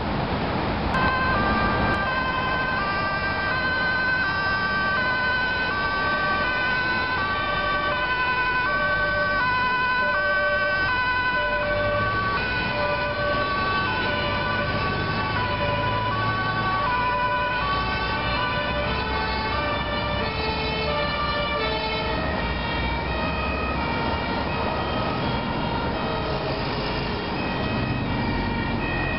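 Two-tone sirens of emergency vehicles, more than one sounding at once, each stepping back and forth between two pitches, starting about a second in over the steady noise of motorway traffic.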